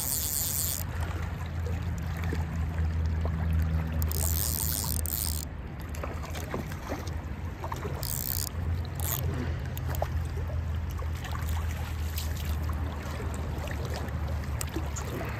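Jacket sleeve rubbing and rustling against the camera microphone in several hissy bursts, near the start, around four to five seconds in and around eight seconds in, over a steady low rumble.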